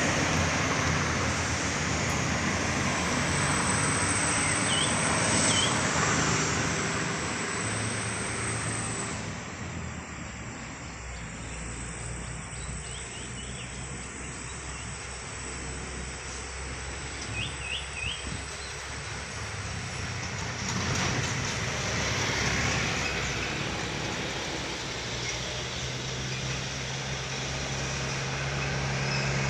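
Heavy road traffic passing on a bend: engines and tyres of buses and trucks going by, loudest in the first several seconds, easing off in the middle, then another vehicle coming through about two-thirds of the way in.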